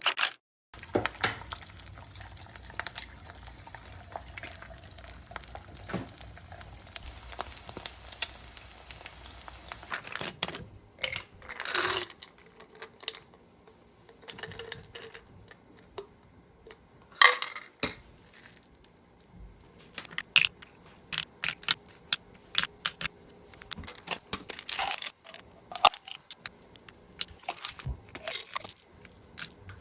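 Irregular clicks, knocks and clinks of household items being handled, with a loud knock about 17 seconds in. A faint steady hum runs under the first ten seconds.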